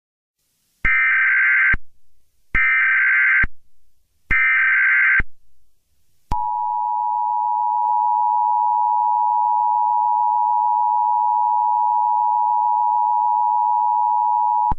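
Emergency Alert System SAME header: three short bursts of buzzy digital data tones, each about a second long. These are followed by the two-tone EAS attention signal, held steady for about eight seconds before it cuts off.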